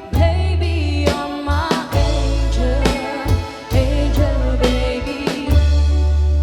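Band music: a sung melody with vibrato over a steady bass line and regular drum hits.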